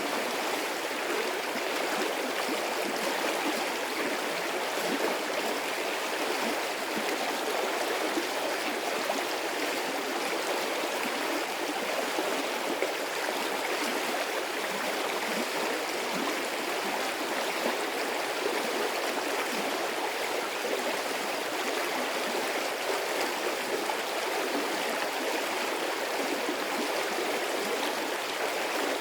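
A medium-sized stream of water flowing and babbling steadily.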